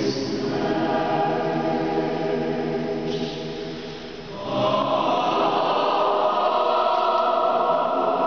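Mixed chamber choir of men and women singing held chords in a large stone cathedral. About four seconds in the sound thins and drops, then the choir comes back louder on a new chord, with the upper voices strongest.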